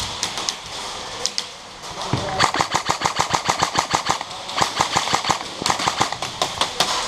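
Airsoft guns firing in rapid full-auto bursts, about eight shots a second. A few single shots come first, then two long bursts start about two and a half seconds in, with a short break between them.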